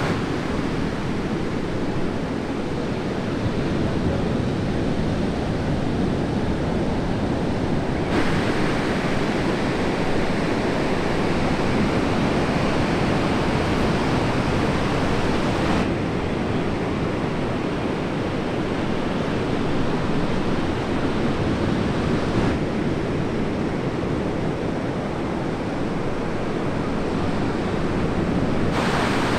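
Ocean surf breaking, a steady rush of noise with wind on the microphone. Its tone changes abruptly every seven seconds or so.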